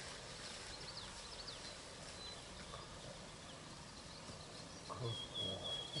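Small wild birds chirping and trilling over faint open-field ambience. About five seconds in, a louder low, wavering voice-like sound comes in.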